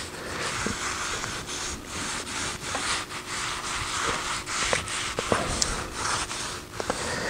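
Cloth rag rubbing food-grade mineral oil (butcher block oil) into the surface of a wooden cutting board in repeated strokes.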